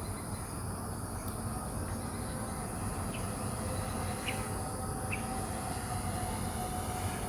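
DJI Mini 2 SE drone's propellers humming steadily as it descends close by, with insects shrilling steadily in the background and a few short bird chirps.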